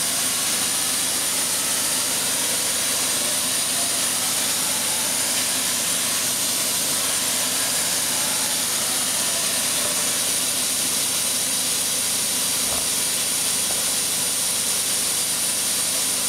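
Daewoo Mynx 540 CNC vertical machining center powered up: a steady hiss with a thin high whine, while the spindle head travels down and back up on its Z axis.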